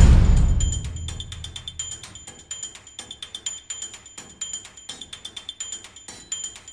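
Background music with a quick, light ticking percussion beat ringing at a high pitch. A loud hit at the start fades away over the first second or so.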